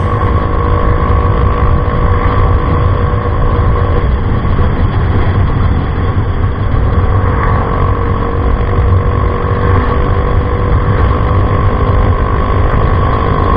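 Yamaha Mio i 125 scooter with an Apido V3 aftermarket exhaust running at a steady speed on a ride. The engine holds an even note with a steady whine over a dense low rumble.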